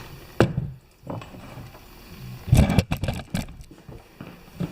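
Clicks and knocks of hands and tools working at the snow thrower's carburetor and fuel line. There is a sharp click about half a second in, then a cluster of knocks a couple of seconds later.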